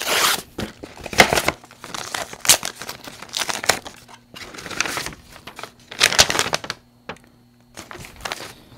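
A courier envelope being opened and the papers inside pulled out and handled: irregular crinkling and rustling with several louder crackles, and a quiet spell about seven seconds in.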